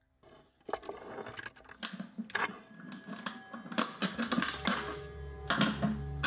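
Sharp clicks and clinks, like a latch and hard objects in a wooden box being handled, repeated irregularly. They play over a film score of sustained tones, with a low drone that swells in the last couple of seconds.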